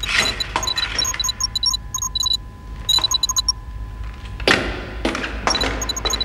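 Science-fiction soundtrack effects: rapid, computer-like electronic bleeps that stop after about three and a half seconds, broken by sharp metallic clanks that ring and echo, three of them in quick succession near the end.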